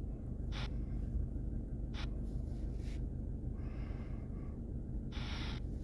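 A person breathing close to the microphone, with a few short breaths and one longer breath near the end, over a low steady hum.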